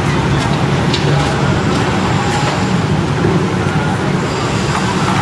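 Steady city street traffic noise: a continuous roar of passing vehicles.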